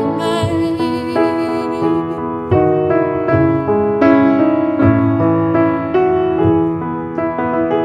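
Background music: solo piano playing slow chords, a new chord struck roughly every second, with the last wavering sung note of a voice fading out at the very start.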